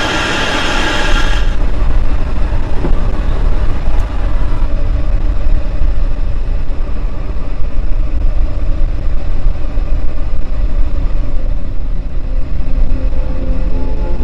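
Loud, steady low rumble of a running vehicle. It opens with about a second and a half of loud hiss that cuts off.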